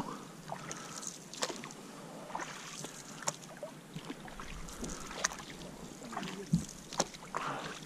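Canoe paddles dipping and pulling through calm lake water, with a short, sharp splash or knock about every two seconds and drips off the blades in between.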